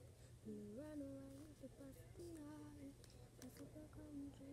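A girl quietly humming a tune to herself: a string of held notes that step and slide up and down, with short breaks between them.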